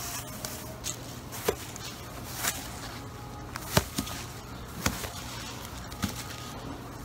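Thin plastic produce bag crinkling and rustling as it is opened and handled, with about six short sharp crackles spread through, over a low steady hum.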